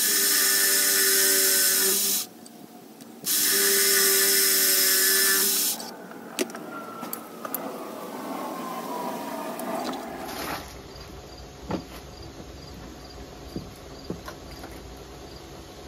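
Cordless drill boring small holes through a thin steel strip, two runs of about two and a half seconds each with a short pause between: holes drilled for tack-welding two strips together. A quieter stretch of metal handling with a few sharp clicks follows.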